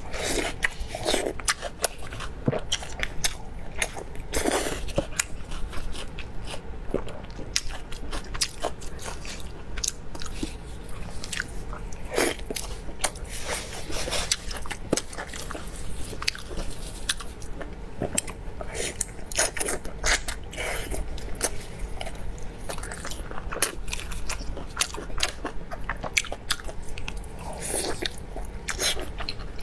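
Close-miked eating of braised spicy beef ribs: biting meat off the rib bone and chewing, a steady run of short clicky, wet mouth sounds.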